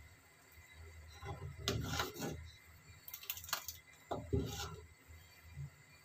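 Wooden spoon stirring thick harira soup in a large aluminium pot, with scattered knocks and scrapes of the spoon against the pot.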